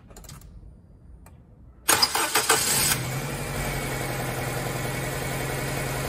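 Car engine starting: about two seconds in it cranks and catches with a sudden loud burst, then settles into a steady idle. The number 4 fuel injector is unplugged for a noid-light test, so that cylinder is not firing.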